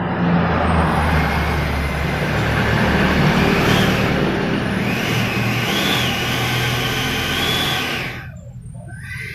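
A 70mm 12-blade electric ducted fan on a 3S LiPo, running in a foam model jet: a loud rushing whine whose pitch rises and falls with the throttle, then is cut back sharply about eight seconds in.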